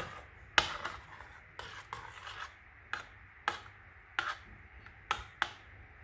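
A metal spoon stirring thick blended soup in a stainless steel pot, knocking and scraping against the pot's sides and bottom in about nine short, irregular strokes.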